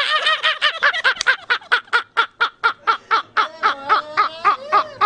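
Two men laughing hysterically, a fast even run of 'ha-ha-ha' pulses about five a second, with the second man's laugh overlapping in the second half.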